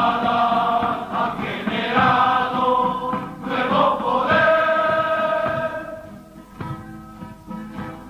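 Background music: a choir singing long held notes, changing pitch twice and growing quieter near the end.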